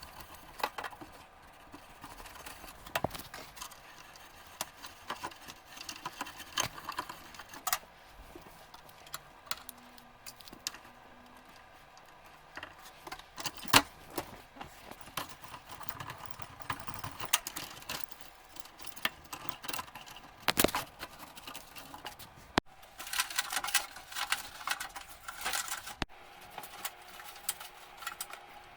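Scattered clicks, taps and light rattles of small hard objects being handled, with a busier stretch of rattling near the end.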